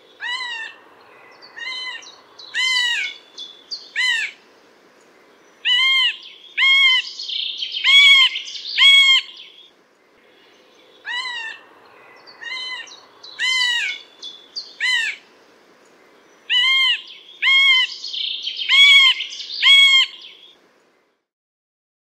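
Middle spotted woodpecker (Dendrocopos medius) giving its second call type: a series of short, pitched call notes, each rising and falling, repeated about once a second in two bouts of roughly ten seconds with a short pause between them.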